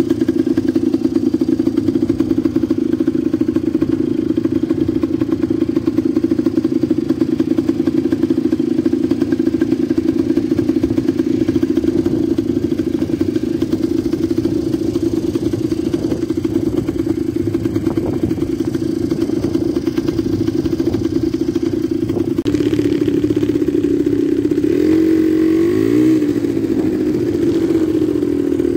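Quad bike (ATV) engine running steadily, then after an abrupt change revving up and down several times near the end.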